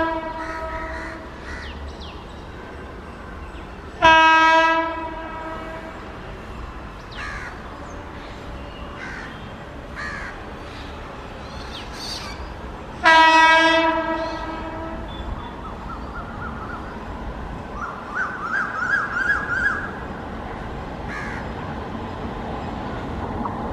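Horn of an approaching Indian Railways WAP7 electric locomotive: three blasts, the first ending about a second in, then a short one and a longer one of about two seconds. Crows caw in between, and the rumble of the train grows near the end.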